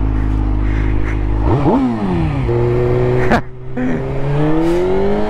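Suzuki GSX-R sportbike's inline-four engine running steadily, then revving up and pulling away about a second and a half in. The sound breaks off briefly about three and a half seconds in, like a gear change, and the revs climb steadily again near the end.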